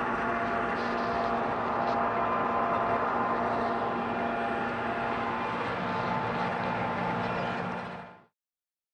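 Tractor engine running steadily, heard from inside the cab: a constant drone with several steady tones. It cuts off suddenly about eight seconds in.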